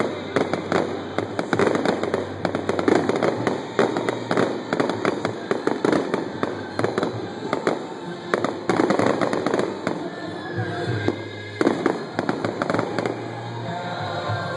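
Fireworks going off in rapid succession: many quick bangs and crackles, one after another. They thin out over the last few seconds as music comes through.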